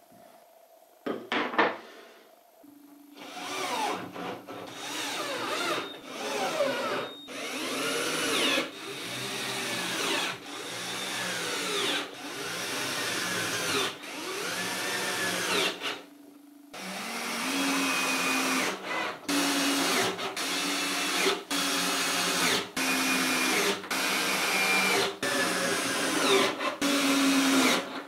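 Cordless drill boring into the chestnut wood of a cabinet's top frame, run in many short trigger bursts of about a second each, its motor speeding up and slowing within each burst. A few sharp knocks come just before the drilling starts.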